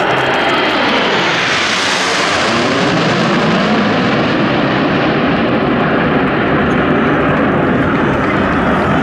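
A formation of Aermacchi MB-339 PAN jet trainers passing overhead: the loud, continuous rush of their turbojet engines. The sound is at its brightest and hissiest about two seconds in and grows duller after that.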